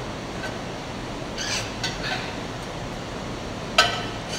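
Aluminum sand-casting flask being handled on the molding bench: a soft knock about a second and a half in, then a sharp metallic clank near the end.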